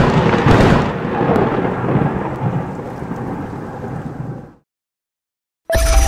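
Intro sound effect: a loud crackling rumble that fades away over about four seconds, then a second of silence. Music starts just before the end.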